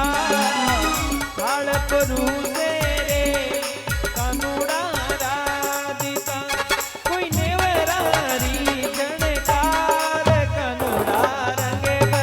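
Instrumental break of a Rajasthani folk bhajan: a melodic lead line with bending, ornamented notes over a steady drum beat.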